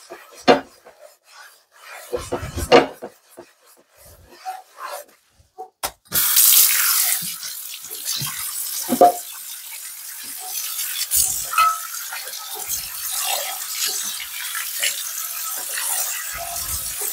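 Intermittent scrubbing and knocking as a cast iron skillet is worked on in a sink. About six seconds in a faucet comes on suddenly and water runs steadily onto the skillet as it is rinsed.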